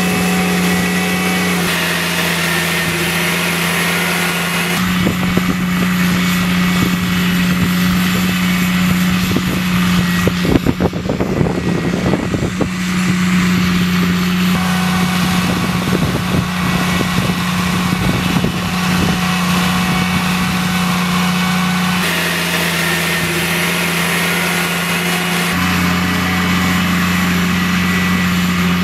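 Diesel engine of an RWF Bron 450 tracked drainage plow running steadily under load as it plows, with its tone shifting abruptly a few times. A stretch of irregular clatter and knocking comes about a third of the way in.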